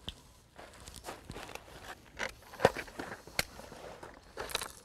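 9mm cartridges being thumbed one at a time into a Kahr CW9 pistol magazine: a string of small, irregular clicks and snaps, two of them sharper than the rest.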